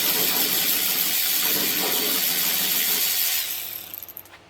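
A power tool fitted with a 10mm socket runs steadily, backing off a nut on a latch. About three and a half seconds in, its motor winds down and stops.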